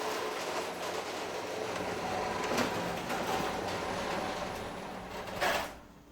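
Garage door opening under its electric opener: the motor and the door rolling up its tracks make a steady rumble and rattle, which ends about five and a half seconds in with a clunk as the door reaches the end of its travel and the opener stops.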